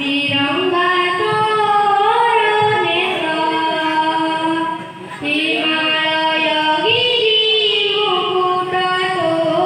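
A child singing solo into a microphone over a PA system, holding long notes with gliding ornaments. The voice breaks off briefly about five seconds in, then carries on.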